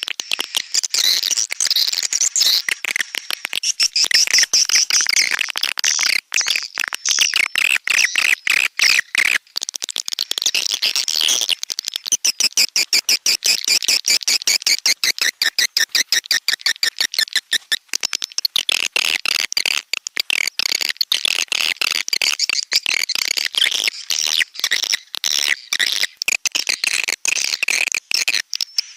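Swiftlet calls from a swiftlet-house lure recording: a dense, nonstop chatter of rapid high-pitched clicks, chirps and buzzy trills.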